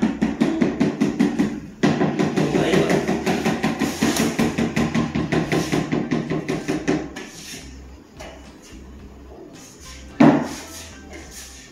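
Rapid, rhythmic knocking on a floor being covered with vinyl cushion flooring, about eight strokes a second, with a brief break about two seconds in. It fades out about seven seconds in, and a single sharp thump comes near the end.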